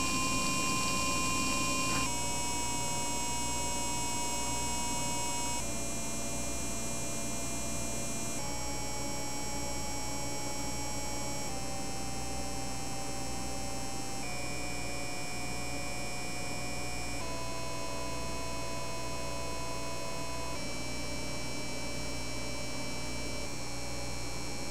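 Laing DDC water-cooling pump running under PWM control, humming with a high whine as its speed is stepped down from about 5,200 to 2,700 RPM. The whine jumps to a new pitch every few seconds, and the pump gets slightly quieter as the speed drops.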